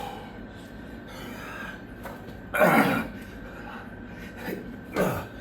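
A man breathing hard and out of breath from burpees. About two and a half seconds in comes a loud, breathy exhale that falls in pitch like a groan, and a shorter one follows near the end.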